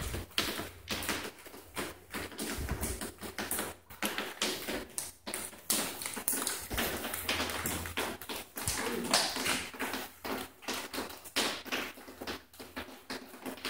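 Footsteps on a debris-strewn floor: a steady run of irregular sharp taps and crunches, several a second.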